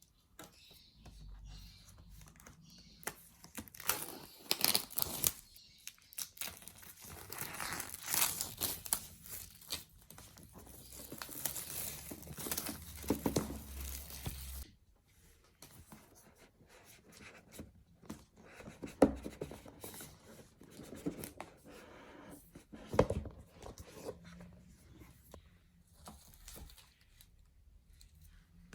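Packaging of an iPad box being torn and crinkled open, with scratchy rustling and tearing through the first half. After that comes quieter handling with scattered rubs and a few sharp knocks of the box and its contents.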